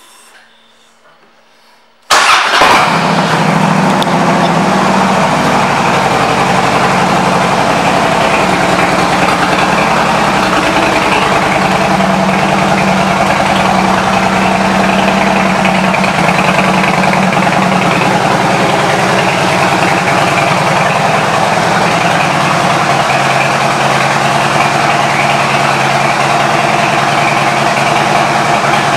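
2008 Harley-Davidson Ultra Classic's Twin Cam 96 V-twin, fitted with a Vance & Hines exhaust, starts suddenly about two seconds in and runs at a steady idle.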